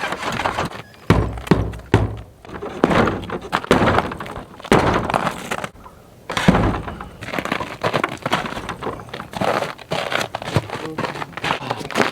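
Irregular heavy thuds and cracking knocks from manual work to force open a stuck barn door.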